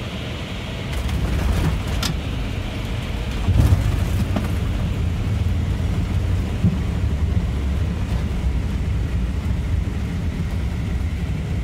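Airliner landing heard from the cockpit: a low rumble of the wheels on the runway builds about a second in and grows heavier with a thump about three and a half seconds in, then holds steady through the landing roll, with an occasional knock.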